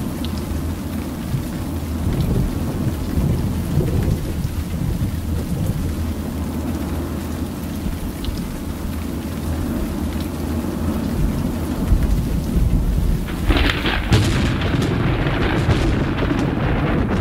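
Recorded thunderstorm: rain with low rolling thunder rumbling steadily, then a sharp crackling thunderclap near the end that rolls on.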